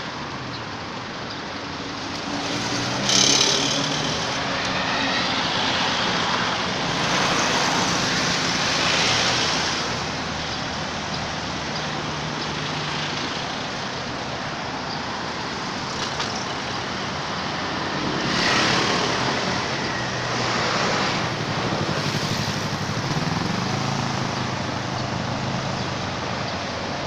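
Road traffic: motor vehicles running and passing, with a low engine hum throughout and louder passes about three seconds in, around eight seconds and again around nineteen seconds.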